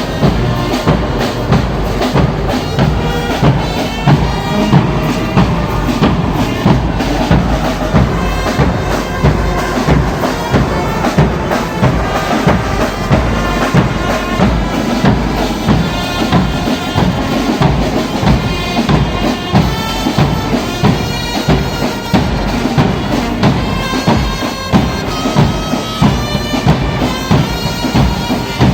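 Church brass band playing: sustained wind-instrument tones over a steady, regular drum beat.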